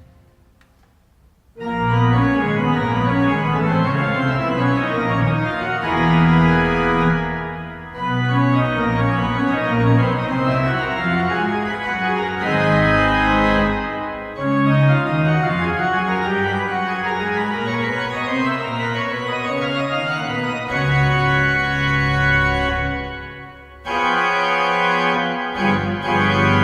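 Pipe organ playing sustained chords over a deep pedal bass in slow phrases, entering about a second and a half in after a fading reverb tail and dipping briefly before a loud chord near the end.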